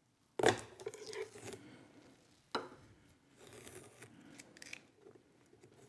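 Aluminium miter bar being pulled free of double-sided tape on a sled's plywood platform: a sharp rip about half a second in and another a couple of seconds later, then softer tearing as strips of the tape are peeled away.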